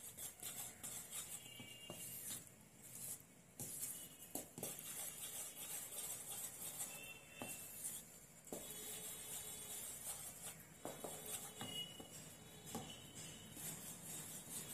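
A wooden spoon stirring flour into a thick egg-and-butter cake batter in a plastic bowl: faint, irregular scraping with soft knocks against the bowl.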